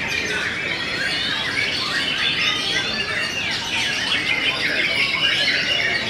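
Many caged white-rumped shamas (murai batu) singing at once in a song contest: a dense tangle of overlapping quick whistled phrases and trills that never lets up.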